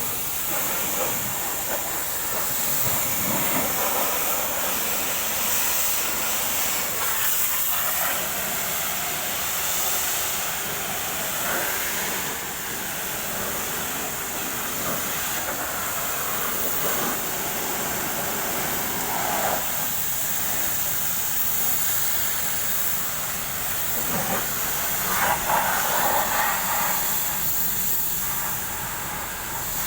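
High-pressure water jet spraying over a bus engine bay: a steady hiss that swells and shifts as the jet moves over the surfaces.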